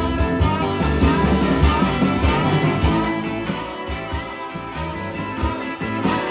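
Music with a steady beat, from an iPad on the auxiliary input, playing through a 1976 Pioneer SX-750 stereo receiver.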